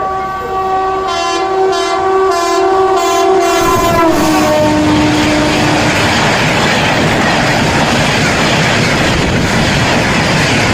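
Express train sounding a long multi-tone horn as it runs through the station at speed, the horn's pitch dropping as the locomotive passes about four seconds in, followed by the loud steady rush of the coaches going by.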